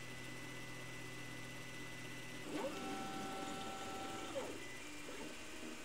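Anet A8 3D printer's stepper motors moving an axis as the print starts, over a faint steady hum. About two and a half seconds in comes a rising whine as the move speeds up, a steady pitch for nearly two seconds, then a falling whine as it slows and stops.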